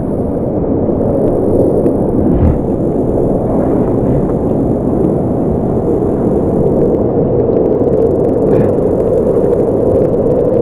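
A river in spate rushing down a chute of rock slabs right beside the camera: a loud, steady rush of floodwater, heaviest in the low and middle range.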